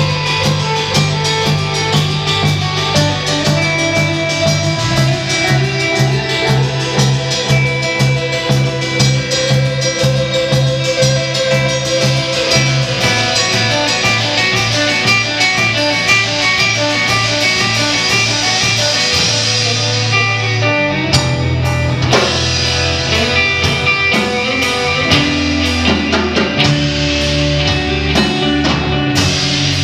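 Rock band playing: electric guitar, electric bass and drum kit together, with cymbals struck steadily throughout. About two-thirds of the way through the cymbals drop out briefly and the band moves into a new section.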